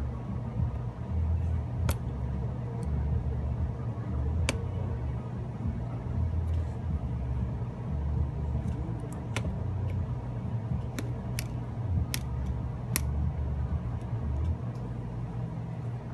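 A handful of small, sharp clicks as flex-cable connectors are popped off a Samsung Galaxy S4's logic board, over a steady low rumble.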